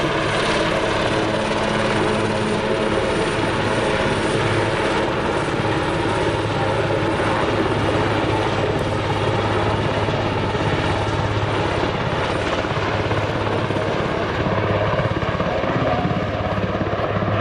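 Eurocopter AS532UL Cougar (Super Puma) twin-turbine military helicopter flying low past, its main rotor and turbines making a loud, steady noise with an even low rotor hum throughout.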